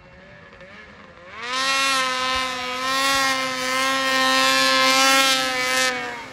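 Ski-Doo 600RS race snowmobile's two-stroke engine with a race can exhaust. It runs quietly at first, then about a second in the throttle opens and it runs very loud at high revs, holding nearly steady for about four seconds before easing off near the end.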